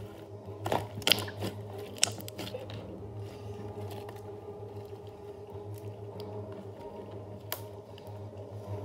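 Pink slime being lifted, stretched and squished by hand, giving a few sharp sticky pops and squelches in the first three seconds and another near the end. A steady low hum runs underneath.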